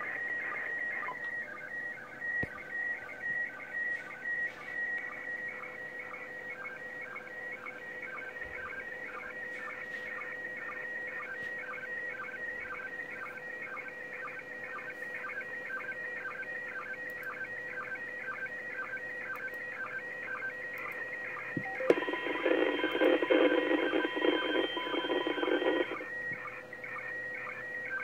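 Slow-scan television (SSTV) image signal from the International Space Station in PD120 mode, received on 145.800 MHz FM through the ICOM IC-746PRO's speaker: a warbling pattern of tones repeating about twice a second. About 22 seconds in, a louder, harsher burst covers it for about four seconds.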